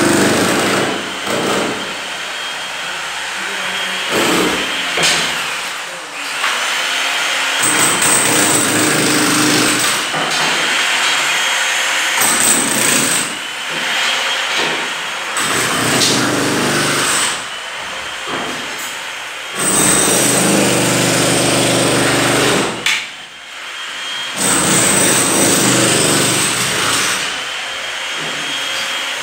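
An electric power tool running in repeated bursts of a few seconds each, stopping and starting again several times.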